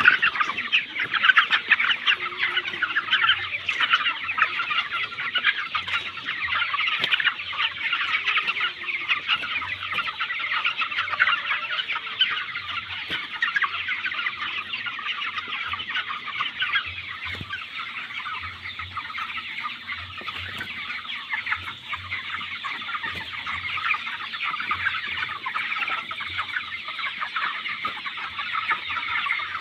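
A large flock of 25-day-old broiler chickens in a poultry house, many birds cheeping and clucking at once in a dense, continuous chatter.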